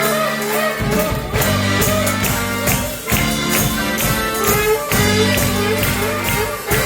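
Music with a steady percussion beat, tambourine-like jingles and sustained bass notes under a wavering melody line.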